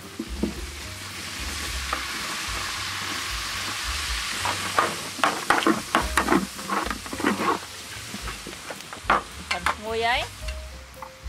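Shredded ginger stirred in a very large metal pot of hot, sizzling liquid with long metal ladles and spatulas: a steady sizzling hiss for the first few seconds, then a run of clinks and scrapes as the utensils strike and drag against the pot.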